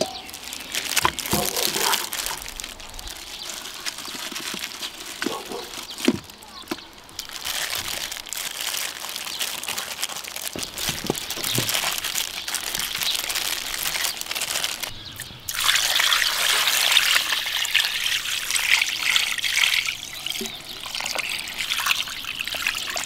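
Water poured from a pot into a wide shallow iron pan of pork back bones and seasoned dried radish greens: a steady splashing pour that starts about two-thirds of the way through. Before it come soft wet squishing and a few knocks as gloved hands pile the bones into the greens.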